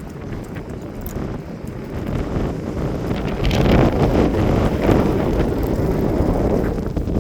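Strong gusting wind buffeting the microphone, a loud rush that builds about three and a half seconds in and eases slightly near the end.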